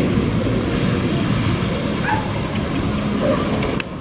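Steady rushing noise of wind and churning water with a jet ski running through it, a few short high-pitched calls over it now and then. A sharp click near the end as the level drops.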